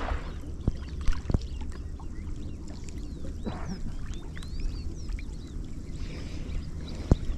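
A flock of small birds at the water's edge, peeping and chirping in many short overlapping calls, which the fishermen take for whistling-duck chicks (pichiches). Under them runs a steady low rumble, with a sharp knock about a second in and another near the end.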